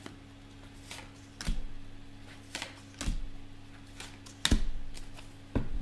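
A deck of tarot cards being shuffled by hand: about five separate short slaps and riffles of the cards, the strongest about four and a half seconds in, over a faint steady low hum.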